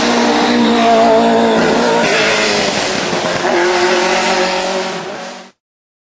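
Judd V8 race engine of a BMW E36 hillclimb car revving hard through a bend. The pitch drops about two seconds in, then climbs again. The sound fades and cuts off abruptly near the end.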